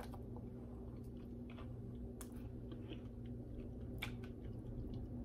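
A person chewing a soup dumpling close to the microphone, with a few short mouth clicks, the sharpest about two and four seconds in, over a steady low hum.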